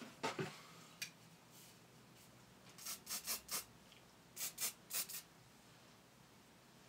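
Aerosol hairspray can sprayed in quick short bursts to set curled hair: a run of about five about three seconds in, then about four more a second later.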